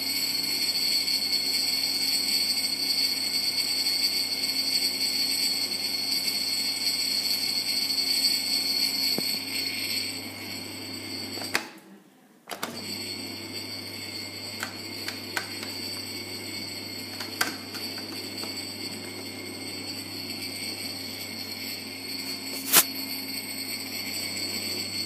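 Bosch dishwasher running with a steady low hum and several high, steady whining tones: the strange noises it makes during its cycle. The sound fades about ten seconds in and stops briefly around twelve seconds, then carries on quieter with scattered light clicks and one sharp click near the end.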